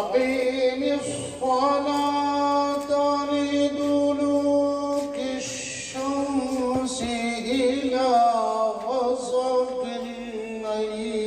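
A man's voice reciting the Quran in the melodic tajweed style, into a microphone. It comes as two long drawn-out phrases on held notes, with a short break about six seconds in; the second phrase rises in pitch and then falls.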